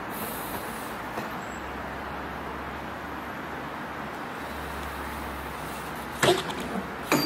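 Steady outdoor rumble, then two loud knocks about a second apart near the end: a BMX bike's wheels coming down hard on concrete.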